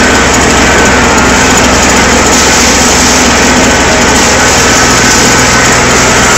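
A small engine running steadily and loudly, with no change in speed.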